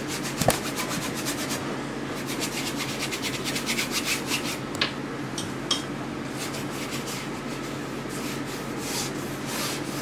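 Flat bristle brush scraping oil paint across a stretched canvas in quick repeated strokes, a dry rubbing sound.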